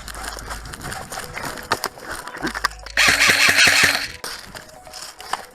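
Movement noise with scattered clicks and rustling, then about three seconds in a loud rapid burst lasting about a second, typical of an airsoft electric gun firing on full auto close to the microphone.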